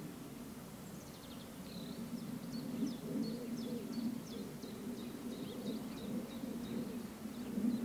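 Small birds chirping repeatedly, quick high notes, over a low rumble from a steam locomotive working out of sight. The rumble grows a little louder near the end.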